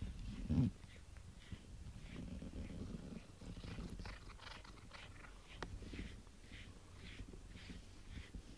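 Domestic cat purring right at the microphone, a low rumble that swells and fades, with scratchy rustling of its fur rubbing against the microphone. A loud thump about half a second in.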